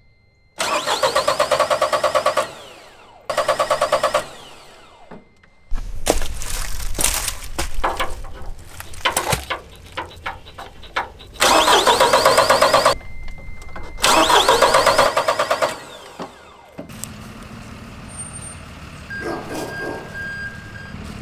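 Mahindra compact tractor's diesel engine cranking on its starter in several loud bursts of one to two seconds, turning over without catching while air is being bled out of the fuel lines. A steady high buzzer tone sounds between some of the cranks, and scattered clicks and knocks fill the middle.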